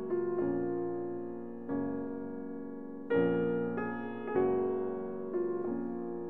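Slow, gentle piano music: single notes and chords struck every half second to second and a half, each ringing and fading before the next.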